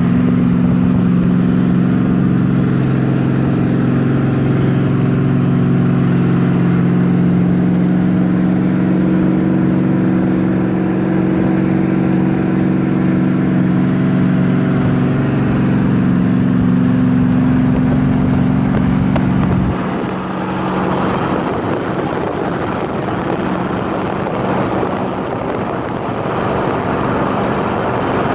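Car engine and exhaust droning at a steady highway cruise, mixed with road and wind noise from a moving car. About two-thirds of the way through, the engine drone drops away suddenly, leaving rushing wind and tyre noise.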